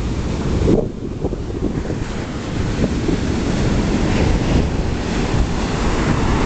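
Ocean surf breaking and washing up a sandy beach, with wind buffeting the microphone; it grows louder over the last few seconds.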